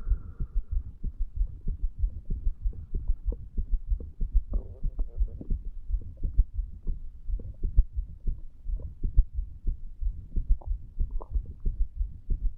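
Human heartbeat picked up over the mitral valve area of the chest: a continuous run of low lub-dub thumps with a low hum beneath.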